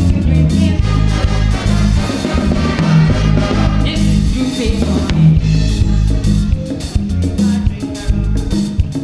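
Live band playing a soca parang tune, with saxophones and trumpets, keyboard, drum kit and a strong bass line.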